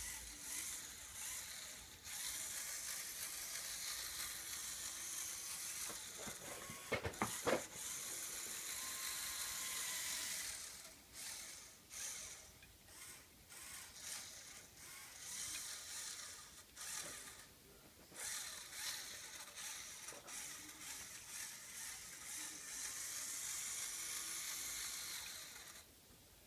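Small electric motors and plastic gears of a LEGO Technic forklift whirring as it drives and works, running in stretches that start and stop several times. A few sharp clicks about seven seconds in are the loudest sounds.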